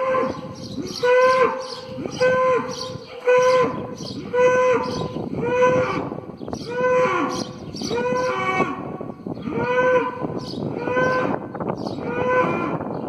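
Cattle mooing over and over, in short calls repeated about once a second.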